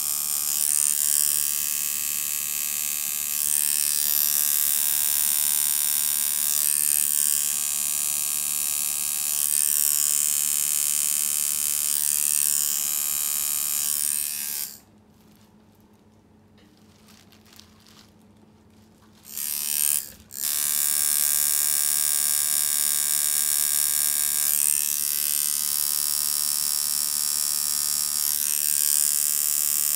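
Custom-built tattoo machine buzzing steadily as it runs needles into skin. About halfway it stops for some five seconds, gives a short burst, then starts again and runs on.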